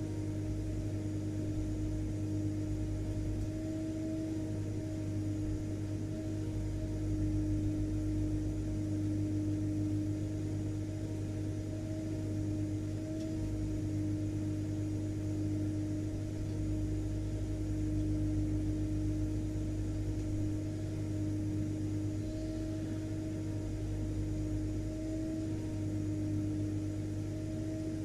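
Vacuum cleaner (hoover) motor running steadily: a constant drone with an even mid-pitched hum over a low rumble, unchanging throughout.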